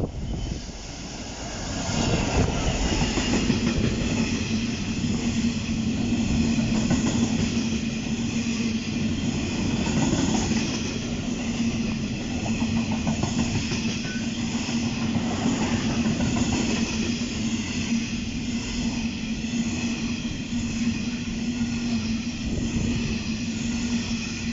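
A train running past at steady speed, with a continuous rumble of wheels on rail and a steady low hum, louder from about two seconds in.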